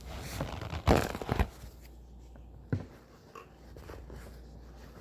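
Handling noises while instant coffee is made: about a second and a half of rustling and crinkling with two louder knocks, then a single sharp click a little under three seconds in.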